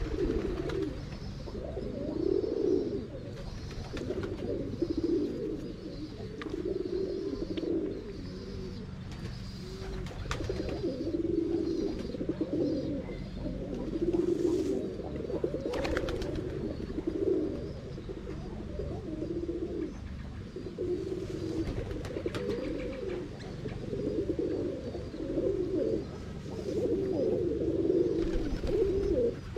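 Domestic pigeons cooing: low, rolling coos repeating every second or two, several birds overlapping.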